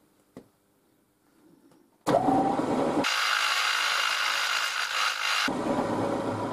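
Milling machine spindle starting up about two seconds in, then a twist drill bit cutting into a square steel tube with a bright hiss for about two and a half seconds before the machine keeps running more quietly.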